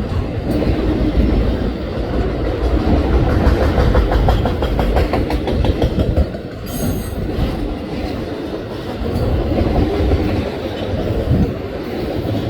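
Autorack freight cars of a passing train rolling by, wheels rumbling and clicking over the rail joints, with a brief high wheel squeal about seven seconds in.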